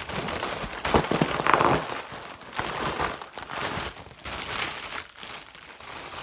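Crinkling and rustling of something being handled close to the microphone, in irregular bursts.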